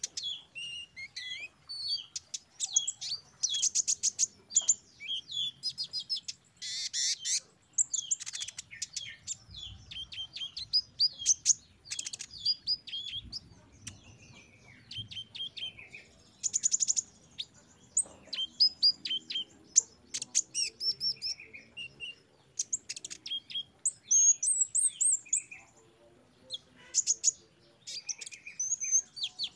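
Copper-throated sunbird (kolibri ninja) singing: a long, varied run of rapid high chirps, quick sweeping notes and trills, with a few short buzzy bursts.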